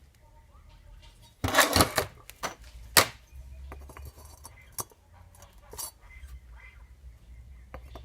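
Metal tools and engine parts clinking and clattering as they are handled: a louder clatter about one and a half seconds in, a sharp clink at about three seconds, then scattered lighter clicks.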